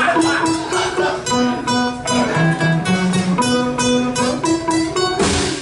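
Live acoustic music: a strummed string instrument playing rhythmic chords in short, evenly spaced strokes, an instrumental stretch of a stripped-down dance-pop medley.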